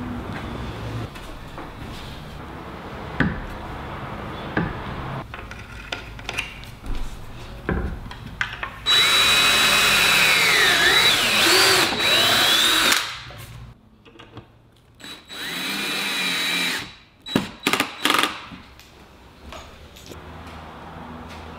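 Cordless drill driving screws to fasten figure-eight tabletop clips. One long run of about four seconds has a motor whine that dips and rises in pitch under load, and a shorter, quieter run follows. Clicks and knocks of handling come between the runs.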